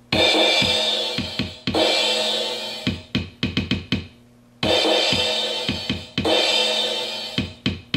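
LinnDrum drum machine playing back a recorded drum pattern from its sampled voices. Two long, ringing cymbal-and-kick hits are followed by a quick fill of about six short drum hits and a pause of about a second, and the pattern then repeats.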